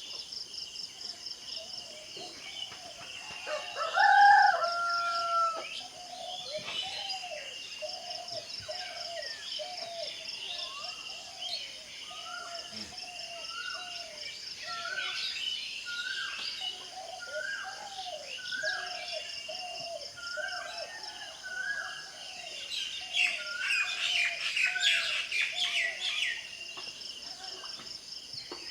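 A rooster crows once, loud and held, about four seconds in. A bird then repeats a short two-part call roughly once a second over a steady high insect-like trill. Songbirds chirp throughout, busiest near the end.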